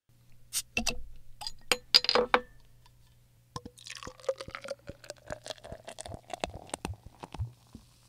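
Ice clinking into a glass, then a drink poured in, with the pouring tone rising slowly as the glass fills. A steady low hum runs underneath.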